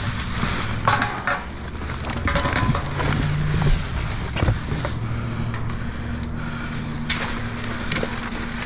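Plastic trash bags crinkling and rustling, with cardboard knocking, as hands dig through the trash in a dumpster. The handling comes in irregular bursts over a steady low hum.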